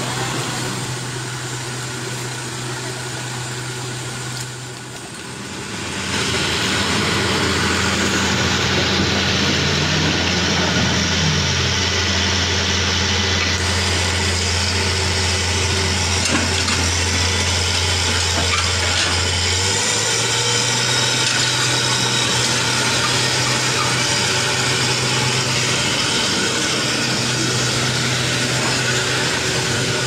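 Pickup truck engine running steadily as it drives through shallow muddy water, with a constant hiss of noise over the hum. The engine hum drops deeper and louder about six seconds in, then shifts back up near twenty seconds.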